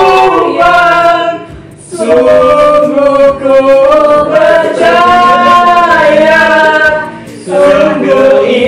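Several voices, men and women, singing a hymn a cappella in long held notes, breaking off briefly about a second and a half in and again near the end.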